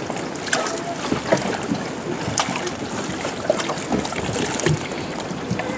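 Sea water lapping and splashing, with wind on the microphone and scattered small knocks.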